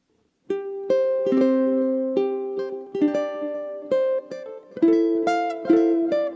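Solo ukulele music: plucked notes and chords that begin about half a second in, each ringing out before the next is struck.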